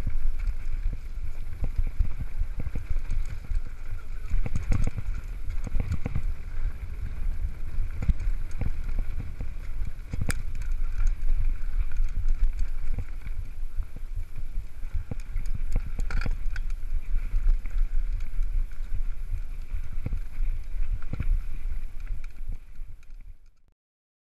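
Wind buffeting the microphone of a handlebar-mounted camera on a mountain bike riding a rough dirt singletrack, with frequent rattles and knocks from the bike over bumps. The sound fades out to silence near the end.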